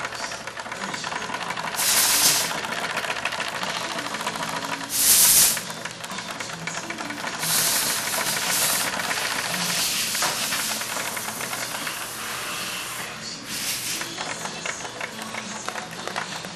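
IDL-4U3 car carpet overedge sewing machine running steadily, its stitching mechanism making a fast, even rattle. Short bursts of hiss cut in about five times over it, the loudest about five seconds in.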